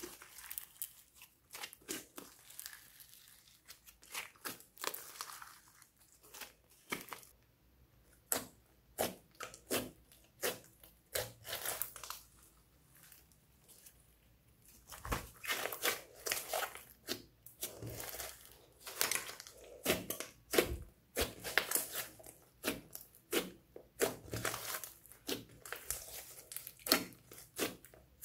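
Large mass of homemade slime being kneaded, stretched and poked by hand: irregular sticky clicks and pops. They come sparsely for several seconds about a quarter of the way in, then thick and fast through the second half.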